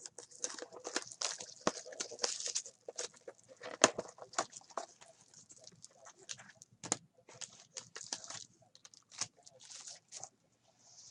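Trading-card packaging and cards being handled: irregular crinkling, tearing and rustling with many small clicks and taps, as a new box of football cards is opened.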